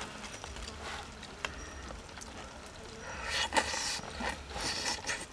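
Mouth sounds of eating stewed pork intestine: slurping and chewing, in a noisy burst about three seconds in. A few faint clicks come before it.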